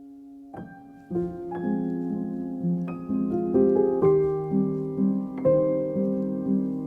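Background music: a piano playing a slow, gentle melody over chords, notes struck one after another, entering about half a second in after a held chord fades.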